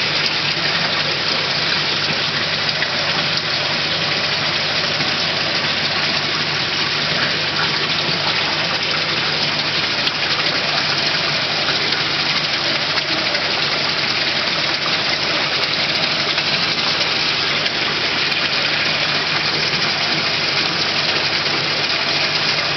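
Steady rush of water splashing and churning in a koi holding tank, with a low steady hum underneath.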